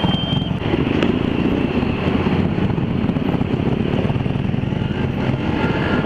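Motorcycle engine running steadily close to the microphone, a dense low rumble that begins sharply right at the start.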